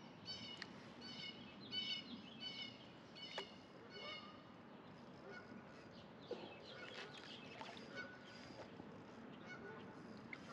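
Birds calling faintly: a run of short repeated calls, about two a second, over the first three seconds, with a few more later on.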